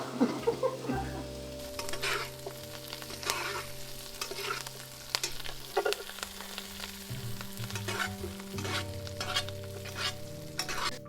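Peppercorn-crusted steak searing in hot butter in a pan, sizzling steadily, with repeated sharp surges of louder sizzle as the hot butter is spooned over the steak to baste it.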